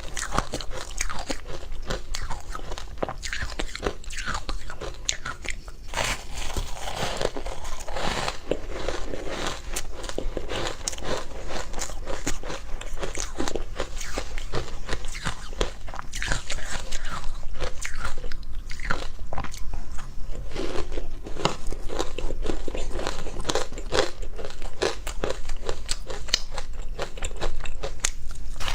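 Close-up crunching and chewing of matcha-powdered ice: dense, rapid crackling crunches from bite after bite of frosty, powdery ice.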